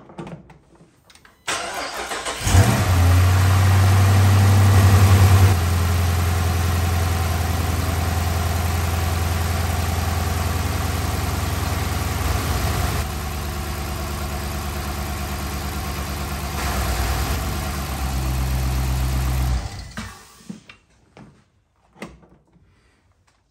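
Dodge Charger R/T's 5.7-litre Hemi V8 started on fresh oil just after an oil change: the starter cranks for about a second, the engine catches with a brief loud flare, then settles into a steady idle. It is switched off near the end after running for about twenty seconds.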